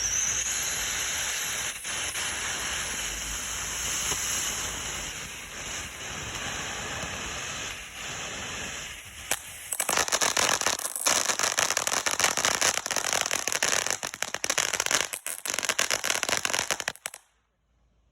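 Fireworks hissing steadily for about ten seconds, then crackling in a dense, rapid rattle for about seven seconds before stopping abruptly.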